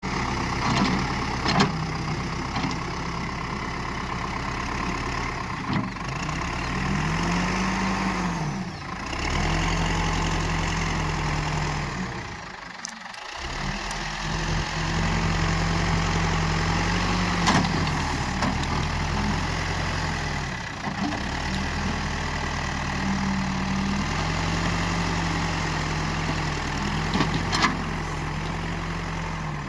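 Backhoe loader's diesel engine running steadily, revving up and settling back a few times, with a few sharp clicks; the sound cuts out briefly near the middle.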